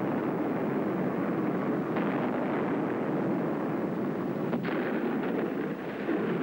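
Battle sound effects from old wartime film footage: a dense, continuous din of artillery fire and explosions, with a couple of sharper cracks about two seconds in and again past the middle.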